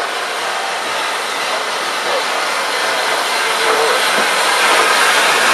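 Steam locomotive hissing steam at a station platform: a steady, dense hiss that grows gradually louder.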